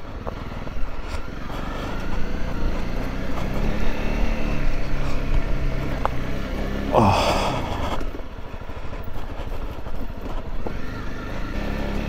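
Honda CRF250 Rally's single-cylinder engine running as the motorcycle rides a rough dirt trail, with a brief louder burst about seven seconds in.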